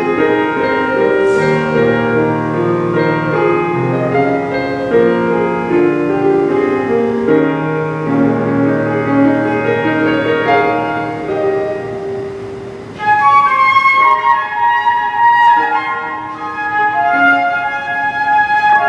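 Live flute and piano performance of a pop ballad. A piano passage of held chords gives way about two-thirds of the way through to the flute entering with the melody in a higher register.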